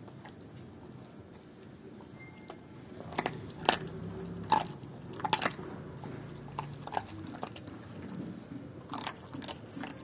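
German Shepherd chewing and crunching raw chicken legs, the bones cracking in sharp snaps. The snaps come thickest and loudest about three to five seconds in, with more scattered cracks later.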